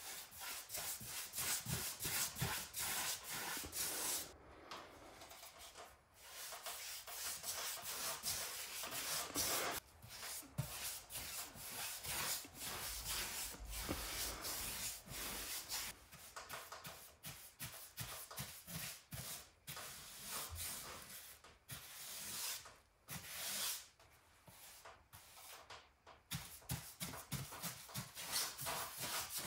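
Paintbrush bristles scrubbing back and forth across blue pine ceiling boards as tung oil is brushed on: runs of scratchy strokes broken by brief pauses.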